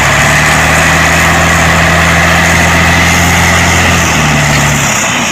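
Heavy truck engine idling steadily, easing off a little about four seconds in.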